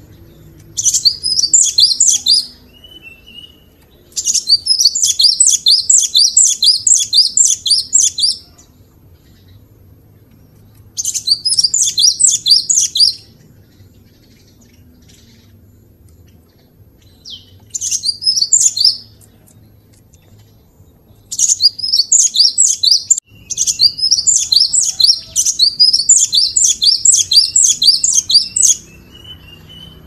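Cinereous tit (glatik batu / gelatik wingko) singing in six bursts of fast, high, repeated chattering notes, each one to five seconds long, with quiet gaps between them.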